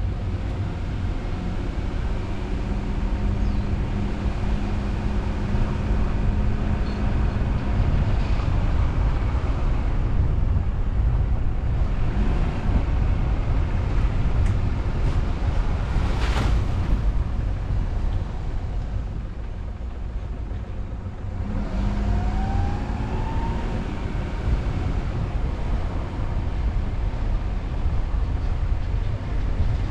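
A car driving: a steady low road rumble with wind noise and engine hum. Near the middle the noise eases off briefly, then a rising whine sets in as the car picks up speed again.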